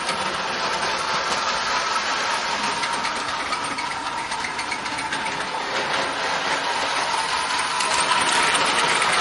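Lionel O-gauge Thomas the Tank Engine toy locomotive running around three-rail track pulling two coaches: the steady whir of its electric motor and gears with a fast clicking rattle of wheels on the rails, getting louder near the end as the train comes close.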